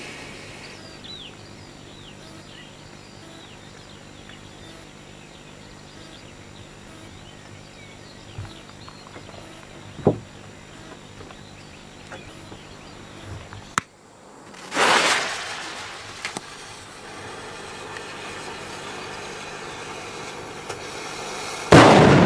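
Firecracker ignitions in the open. A sharp pop comes about ten seconds in, then a noisy rushing burst lasting about a second. Near the end a loud firecracker blast goes off and its noise carries on.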